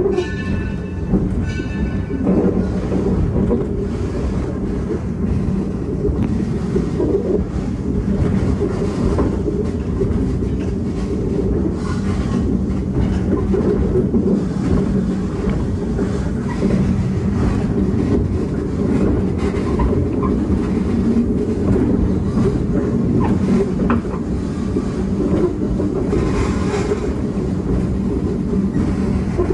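Steam-hauled passenger train rolling along the track, heard from aboard a coach: a steady rumble with scattered clicks of the wheels.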